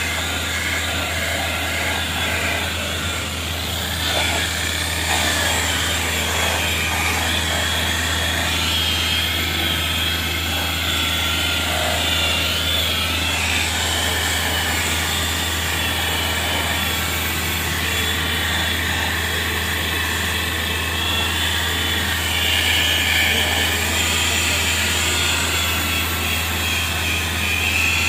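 JCB electric rotary polisher with a foam pad running against car paint: a steady motor whine over a low hum, its pitch wavering slightly as the pad is worked across the panel.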